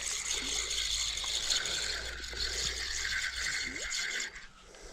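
Fishing reel being cranked, its gears whirring steadily as a small catfish is reeled in; the winding stops near the end.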